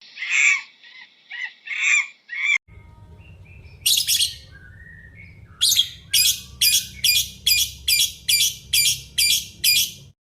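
A bird calling: a few high chirping calls, then after a cut a run of about ten sharp, evenly spaced high calls, roughly two to three a second, over a low background hum.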